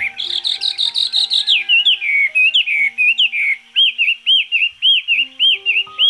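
Taiwan hwamei singing a loud, varied song: fast rolling phrases at first, then, from a little past halfway, a run of repeated arched whistled notes, about three a second.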